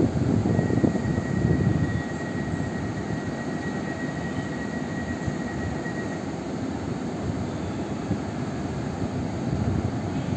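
Koleje Dolnośląskie Newag Impuls 31WE electric multiple unit humming steadily at the platform, its electrical and cooling equipment running. A thin high whine sounds over it from about half a second in and stops about six seconds in.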